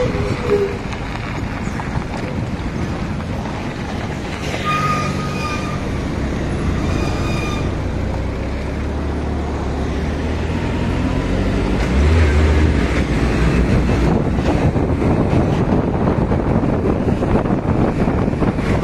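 Road traffic heard from a moving vehicle on a highway: a steady hum of engines and tyres with wind on the microphone. Short horn toots sound about five and seven seconds in, and a heavier low rumble swells about twelve seconds in.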